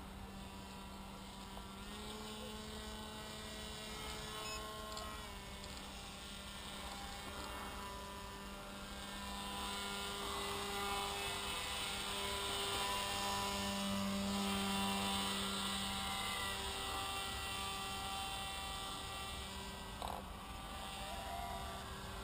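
Electric motor and propeller of a radio-controlled paramotor model (Hacker paramotor unit) buzzing steadily in flight, its pitch stepping up and down with throttle changes. It grows louder as the model passes overhead in the middle, then eases as it flies off.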